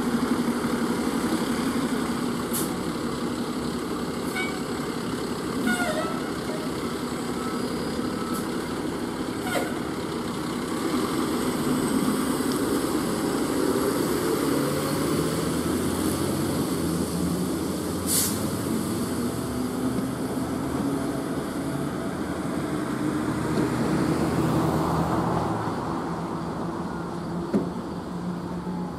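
Fire engine's diesel engine pulling out and accelerating, its pitch stepping up in stages through the second half, with a few short, sharp air hisses from the brakes, the strongest about 18 seconds in.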